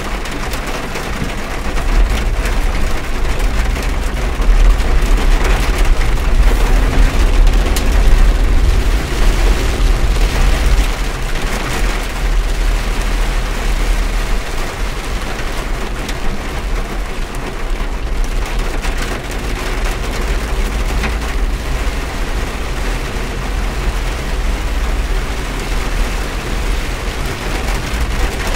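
Heavy rain drumming on a car's windshield and roof, heard from inside the cabin over a steady low rumble from the car. The rain is heaviest in the first half.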